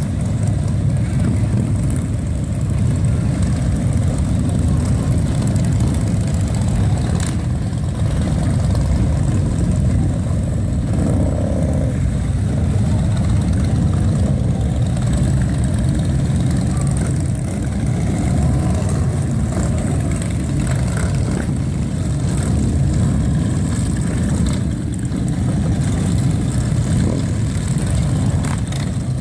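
A steady stream of motorcycles riding past, their engines blending into one continuous low rumble.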